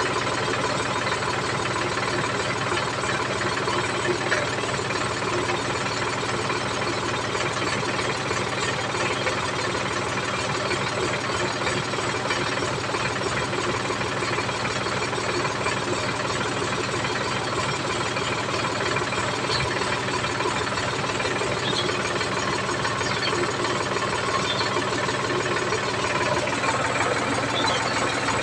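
Sonalika DI 745 III Sikander tractor's diesel engine idling steadily, a little louder near the end.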